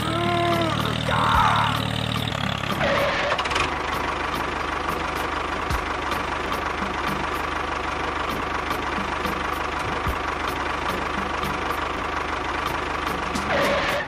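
Tractor engine running steadily, briefly louder about a second in.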